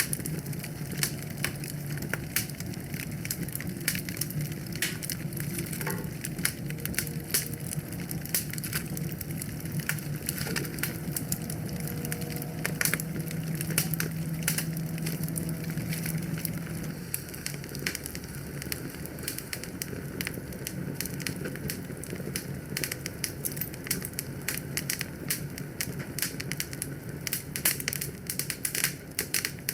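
Wood fire crackling and popping with dense, irregular snaps. Under the crackle runs a steady low rumble that fades out about halfway through.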